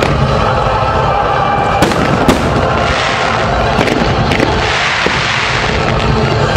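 Aerial fireworks bursting in a dense, continuous barrage, with two sharper, louder bangs about two seconds in.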